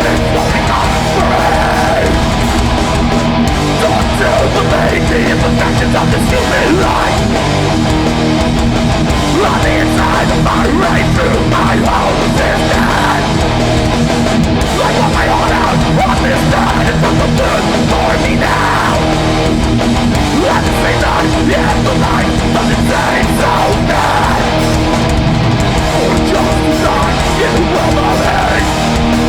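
Live hardcore metal band playing loudly and without a break: heavily distorted electric guitars over bass and drums.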